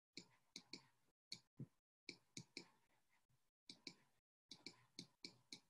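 Faint, irregular clicks and taps of a stylus on a tablet as letters are handwritten, about fifteen in all, coming singly and in quick pairs.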